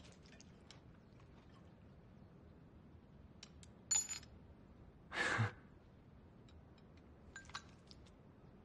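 A square-holed copper cash coin is dropped from chopsticks onto a small dish and gives a short bright clink about four seconds in. It is followed about a second later by a short exhale, with light clicks of chopsticks against crockery scattered around.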